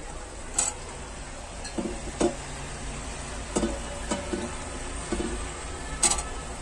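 A metal spatula stirring chopped potatoes into sizzling onion-tomato masala in a metal pressure cooker over a high flame. It knocks and scrapes against the pot about seven times at uneven intervals, some knocks ringing briefly.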